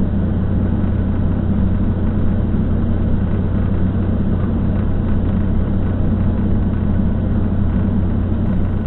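Motorhome driving slowly through shallow floodwater across the road: a steady, even engine drone with road and water noise from the tyres.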